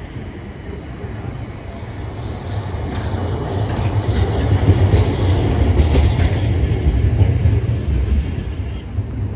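Low-floor city tram passing close by on street rails. Its running noise builds as it approaches, is loudest about four to seven seconds in as it goes past, then fades as it moves off.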